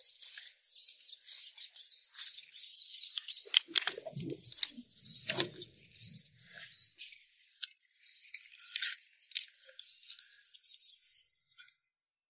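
Small birds chirping busily in the background, with a fast, high, even pulsing that stops near the end. Between about three and a half and seven seconds in, a few sharp clicks and a rustle come from electrical wire and plastic conduit being handled.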